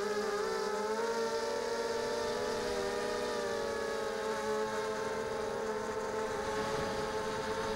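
A ZMR250 quadcopter's RCTimer 2300 kV brushless motors spinning 5-inch props, heard from the onboard camera: a whine of several close pitches that drift gently up and down as the throttle shifts, over a steady rush of air.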